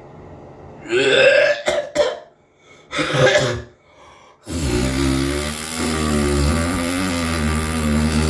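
A person gives two loud throat noises, coughs or burps, about a second and three seconds in. About four and a half seconds in, a loud, steady droning buzz with a wavering pitch starts and keeps going.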